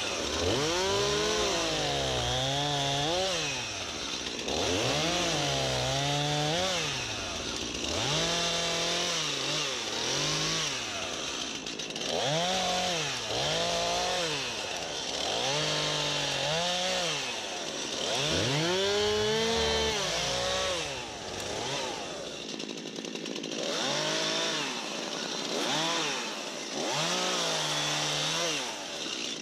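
STIHL MS251C two-stroke chainsaw cutting dead elm, revved up and dropping back again and again, about nine times, as it limbs and bucks the trunk into firewood blocks. The saw is a little quieter over the last several seconds.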